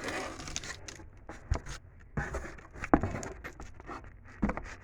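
Handling noise as a boxed fire alarm and its packaging are moved about: light rustling with a few scattered clicks and knocks, the sharpest about three seconds in.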